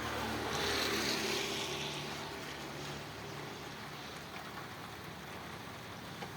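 Steady rain falling, with a louder rush of hiss about half a second in that fades away over the next second or two.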